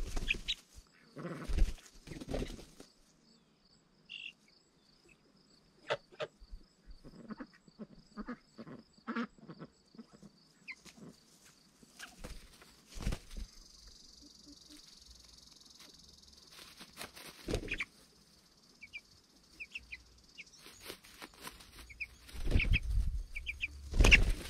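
Young meat chicks peeping in short, high chirps, with a few sharp knocks and clatters in between.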